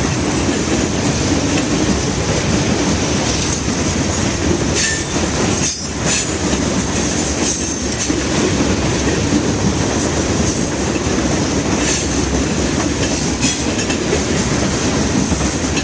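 Freight train cars rolling past close by: a steady, loud rumble of steel wheels on rail, with a few sharp clicks over rail joints.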